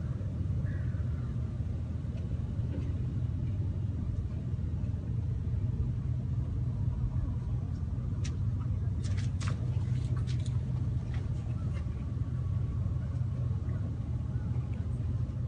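A steady low engine hum, with a few faint clicks about halfway through.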